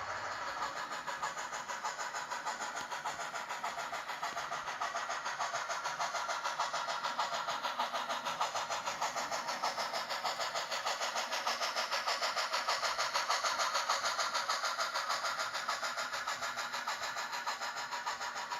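Digital sound decoder of a Blackstone HOn3 D&RGW C-19 steam locomotive model playing steady, rapid steam exhaust chuffs through its small onboard speaker, thin and lacking bass. The chuffing grows louder toward the middle and eases slightly near the end.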